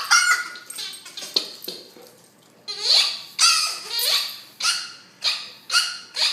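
Rubber squeaky dog toy squeaked over and over as an American mastiff chews it: about ten short, high squeaks in irregular bursts, each falling slightly in pitch.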